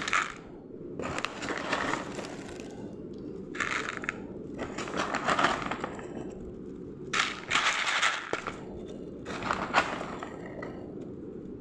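Metal spoon scraping and scooping wet cat food out of a tin, in a series of irregular scraping strokes every second or two.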